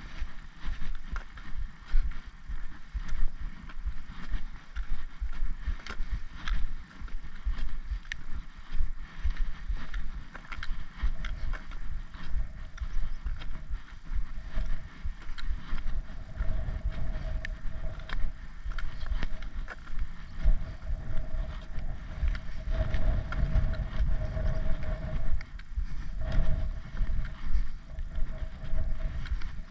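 Gusty wind buffeting the microphone, with footsteps and the taps of a walking pole on a tarmac lane. A steady hum comes in about halfway through.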